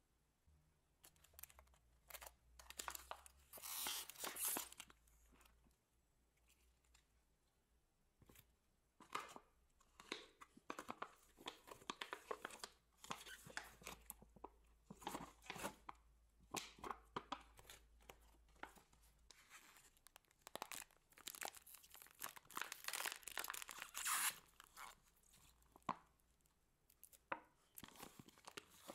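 Hands squishing, stretching and folding a large mass of mixed slime with foam beads, making irregular bursts of wet crackling, popping and squelching.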